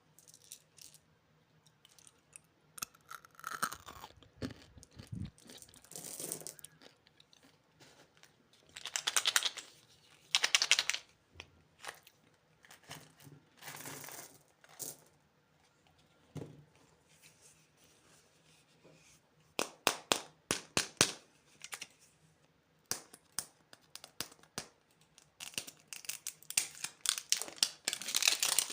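Plastic candy wrappers and packaging crinkling and tearing as they are handled and opened, in irregular crackly bursts that grow denser near the end.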